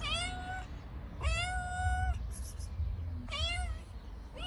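Domestic tabby cat meowing repeatedly to beg for food: three meows, the second one longer and held, with a fourth starting at the end.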